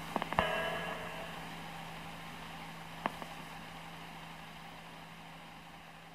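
Electric guitar's last notes ringing out and slowly fading away, with a steady low tone held underneath. A few small clicks come just after the start and one more about three seconds in.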